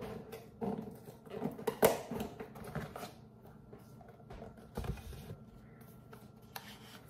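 Knocks, taps and rustling from a small cardboard box being handled and opened by hand, with the sharpest knock about two seconds in and another near five seconds.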